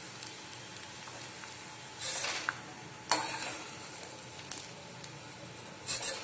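Pieces of edible gum (gond) sizzling steadily in hot ghee in a kadhai, while a slotted steel ladle scrapes and clicks against the pan as the puffed pieces are scooped out. There are a few short scrapes and clicks, the sharpest about three seconds in, with another scrape near the end.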